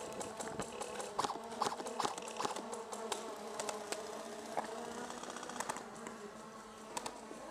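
Small multirotor drone buzzing overhead with a steady hum, with scattered sharp clicks of airsoft guns firing.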